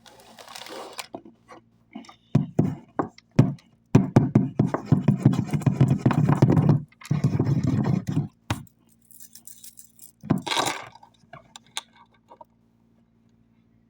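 Snack packaging handled close up: irregular crinkling, rustling and rattling, loudest in a long stretch from about four seconds in to past eight seconds.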